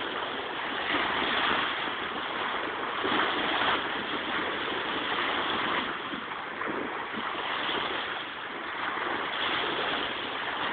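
Small Lake Michigan waves breaking and washing up on a sandy beach: a steady wash of surf that swells and ebbs every few seconds.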